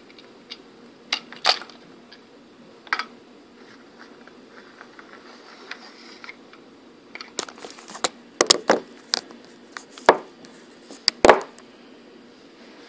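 Scattered plastic clicks and knocks from handling a fashion doll and her small wheeled toy suitcase, with a louder run of knocks in the second half.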